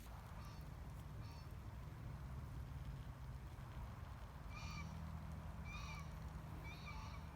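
A bird calling five short times, the last three louder, faint over a low steady rumble.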